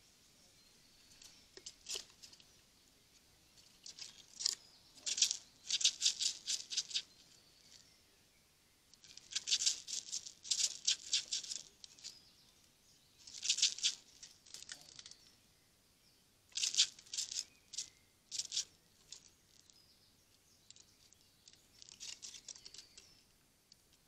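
Eurasian red squirrel clambering on a wooden bird-feeder house: bursts of rapid clicking and rattling, each one to two seconds long, repeated several times.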